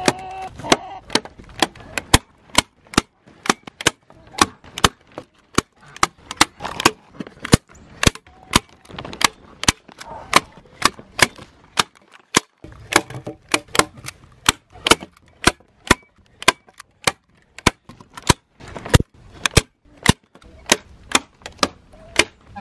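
Hand-squeezed manual staple gun driving staples through plastic sheeting and mesh into a wooden frame: a long run of sharp snaps, about two or three a second.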